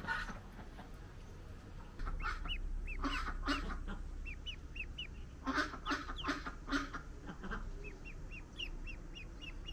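Ducklings peeping over and over in short high chirps, a few a second. Two short runs of louder, lower honking calls from adult fowl stand out over them.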